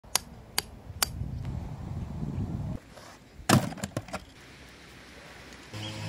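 Sharp knocks: three quick ones about half a second apart, then a low rumbling, then one loud knock followed by a few lighter clicks. Music begins near the end.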